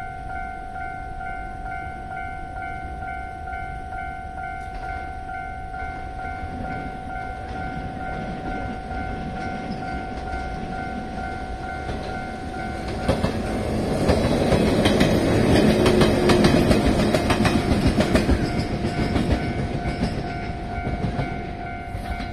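Level-crossing warning bell ringing steadily in rapid repeated dings. About 13 seconds in, a 115-series electric train passes over the crossing with its wheels clattering over the rail joints. It is loudest for a few seconds, then fades while the bell keeps ringing.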